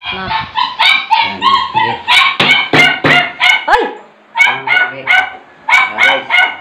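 Small dog yapping rapidly, short sharp barks in quick runs, with brief pauses about four seconds in and again near the end.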